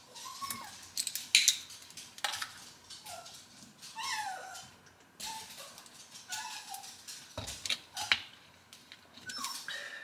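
A dog whining in short, high whimpers, about eight of them, with sharp clicks and knocks in between.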